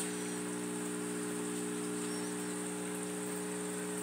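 Aquarium pump running with a steady hum and a constant high hiss.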